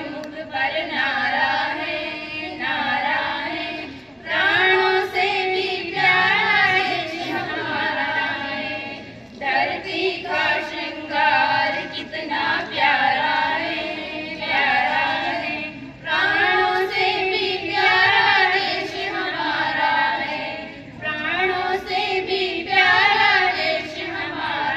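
A group of young women singing a song together in unison, in sung phrases of a few seconds with short breaks between them.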